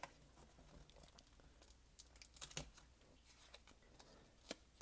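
Faint crinkling and a few soft clicks of a thin metal calculator shield with foil covering being pulled free of its glued foam pads and handled. The clicks are a little louder about halfway through and near the end.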